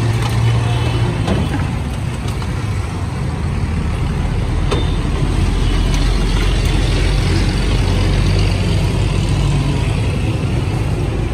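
Busy road traffic: the engines of passing cars, motorcycles and trucks running as a steady low hum.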